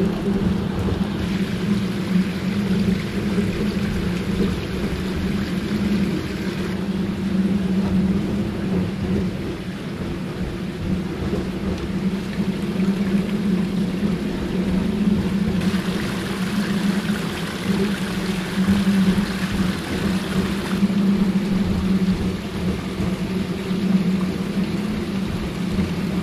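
An LGB G-scale cog locomotive's electric motor and rack gearing running with a steady hum as it climbs a steep rack grade, mixed with the splashing of a small garden waterfall. The water noise swells for a few seconds past the middle.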